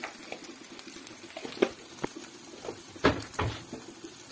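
Hot oil frying spices and turmeric in an aluminium kadai, with a low steady sizzle and scattered sharp crackles. A louder pair of knocks comes a little after three seconds in.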